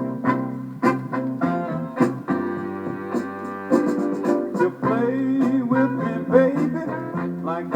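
Soul music: the instrumental opening of the song, with keyboard chords, guitar and drum hits keeping a steady beat.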